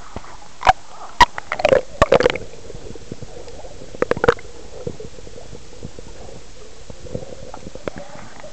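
Water gurgling and sloshing around a camera held half-submerged while a dog paddles past it. There are sharp pops and splashes about one to two seconds in, and again about four seconds in.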